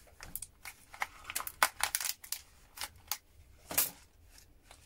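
Irregular sharp clicks and snaps of small plastic-cased relay switches being pried and cut apart with hand tools, with a longer scrape a little before the four-second mark.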